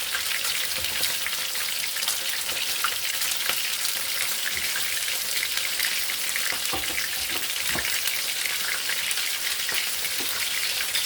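Dormer sausages sizzling and crackling steadily in a frying pan, with scattered sharp spits and pops.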